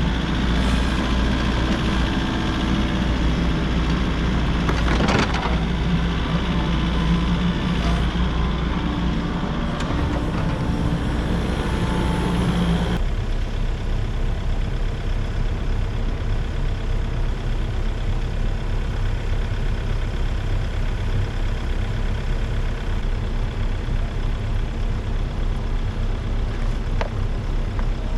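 Volvo excavator's diesel engine running continuously, fuller and busier for about the first thirteen seconds, then changing abruptly to a duller, steadier running sound.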